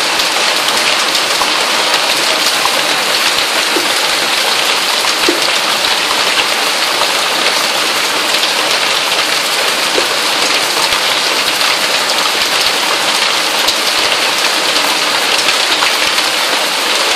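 Heavy hail pelting the ground and surfaces outside an open door, a dense steady clatter of countless small impacts.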